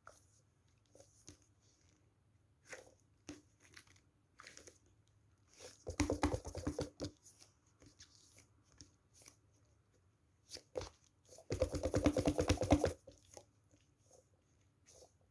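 A squishy toy squeezed and kneaded by hand, giving two bursts of dense crackling, each about a second long, with scattered soft clicks and taps between them.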